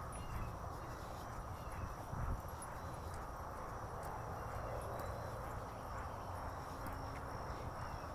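Walking footsteps of sneakers on an asphalt path, light repeated steps over a steady rushing noise.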